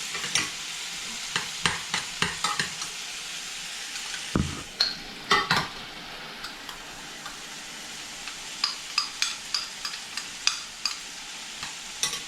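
A steady frying sizzle, with a run of short clicks and scrapes of a spoon against a cup and dish as rice is pressed into the cup, the loudest about four and five seconds in.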